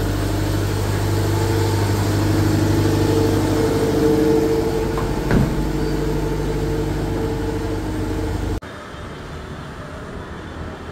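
City bus engine idling close by, a steady pitched hum with one short knock about five seconds in. Near the end it cuts off abruptly to a quieter background.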